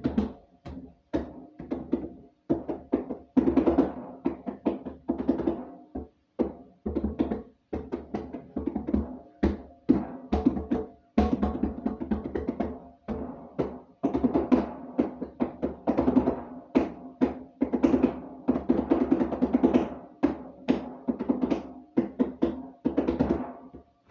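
Mini fridge struck like a drum: quick runs of knocks and thumps in rhythmic bursts, broken by short pauses.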